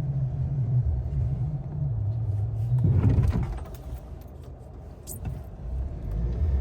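Ford Maverick pickup running, a steady low rumble that swells about three seconds in, then drops for a couple of seconds before picking up again.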